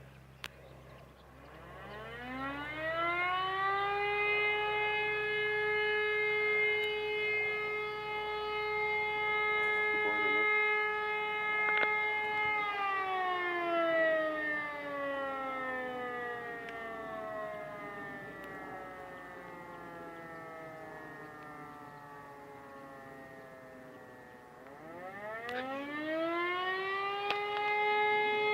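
E57 electromechanical siren sounding the fire-alarm signal. After a click, the rotor spins up to a steady tone and holds it for about eight seconds, then is switched off and winds down slowly in a long falling glide. Near the end it spins up again for the next blast of the signal.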